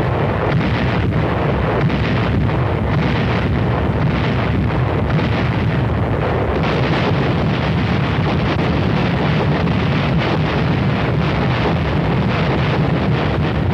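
Artillery barrage: a loud, continuous rumble of many overlapping blasts, with no single shot standing out.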